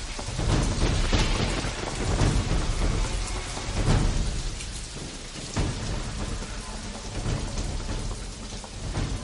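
Steady heavy rain with several low rolls of thunder swelling and fading.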